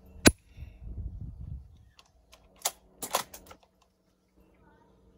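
A single sharp shot from a CO2-powered APS M50 bolt-action airsoft rifle about a third of a second in, followed by a brief low rumble, then a quick run of sharp metallic clicks about a second later as the bolt is worked to eject the shell and reload. The shot is a weak one, the CO2 charge running low and needing to be changed.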